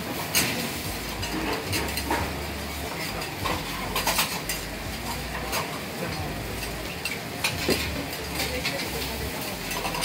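Metal spatulas scraping and clacking on a steel teppan griddle over a steady sizzle of cabbage and noodles frying. The clicks come irregularly, with the sharpest about half a second in and around four seconds in.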